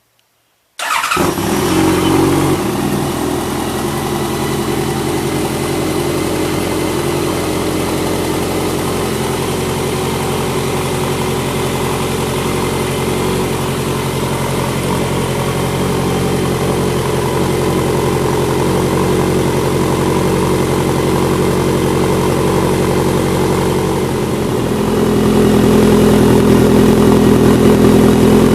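Honda CB1100's air-cooled inline-four starting up through a VooDoo shorty reverse-cone megaphone muffler: it fires about a second in, flares briefly, then settles into a steady idle. Near the end the idle rises a little and gets louder.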